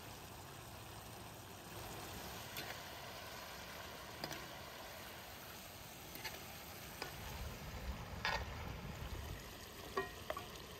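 Chicken and sliced onions cooking in a steaming metal pot, a steady hiss of simmering and frying. A few light clicks of a spoon against metal come through it, closer together near the end.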